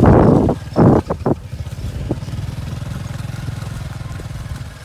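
Honda step-through motorcycle's small single-cylinder engine running at low speed, a steady low putter that fades slightly toward the end. Loud rushing bursts fill the first second and a half.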